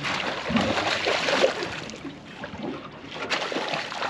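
Water splashing and churning as a hooked sockeye salmon thrashes at the surface beside the boat during netting, with wind on the microphone.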